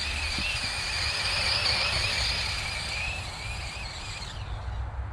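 Stock 2650 brushless motor of a Losi 8ight-E electric RC buggy whining under throttle as the buggy runs and spins its tyres on snow. The pitch wavers with the throttle, is loudest about two seconds in, and drops away near the end.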